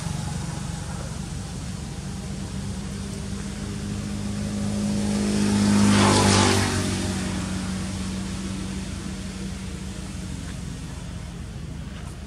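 A motor vehicle passing by: a steady engine hum that grows louder to a peak about six seconds in, then fades away.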